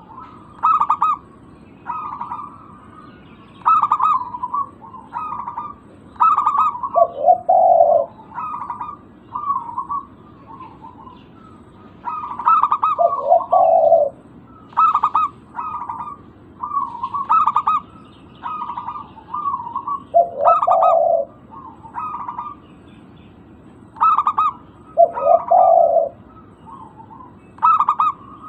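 Zebra dove (perkutut) singing: short bursts of quick cooing notes about once a second, and about every six seconds a louder group of lower notes.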